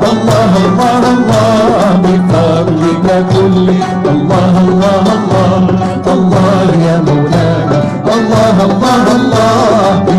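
Live ensemble playing Andalusi music in a Middle Eastern style: a wavering, ornamented melody over frequent drum strokes.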